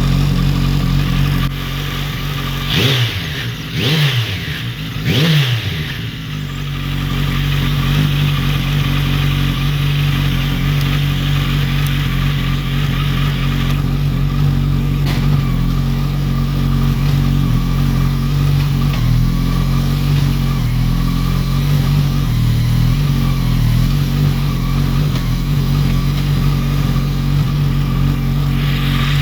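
Car engine idling, blipped three times in quick succession about three to five seconds in, each rev rising and dropping straight back, then running at a steady idle.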